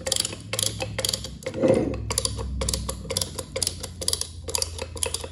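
Ratcheting brake caliper piston tool clicking as its lever is pumped back and forth, a quick irregular run of sharp ratchet clicks. The caliper pistons are already fully pushed in, so the tool ratchets without spreading any further.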